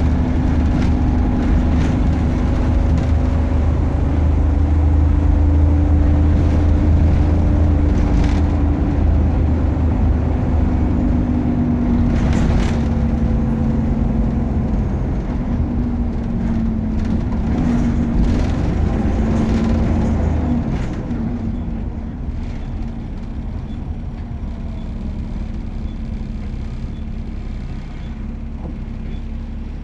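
Optare Versa single-deck bus running on the road: a low engine rumble with a steady whine over it. About two-thirds of the way through, the rumble drops away as the bus eases off the power.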